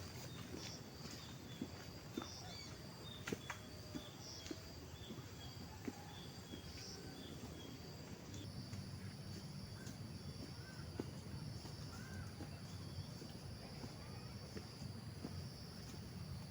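Forest insects shrilling steadily, with a second, higher-pitched insect joining about halfway through, and short bird chirps repeating in the first half. Scattered footsteps and twig snaps through undergrowth.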